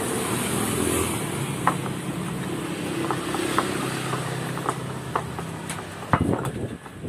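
A motor vehicle engine runs steadily close by, with a few short, light clicks over it and a thump about six seconds in.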